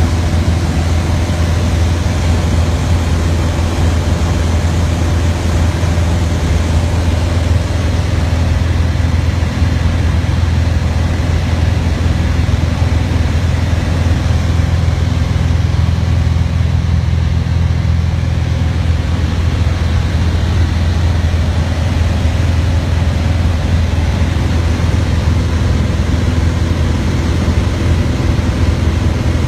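Small propeller plane's engine and propeller running at a steady cruise, heard as a constant loud drone inside the cabin.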